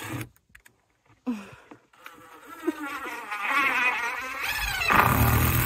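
A flying insect buzzing, its pitch wavering up and down and growing louder over the last few seconds.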